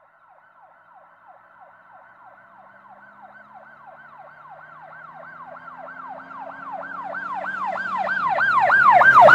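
Emergency vehicle siren in a fast yelp, about three falling sweeps a second, growing steadily louder as it approaches.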